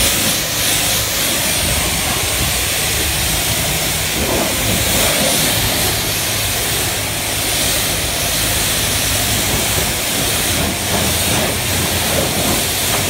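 Car-wash pressure washer wand spraying water onto a pickup truck's body panels and grille: a steady, loud hiss of high-pressure spray, with a low steady hum underneath.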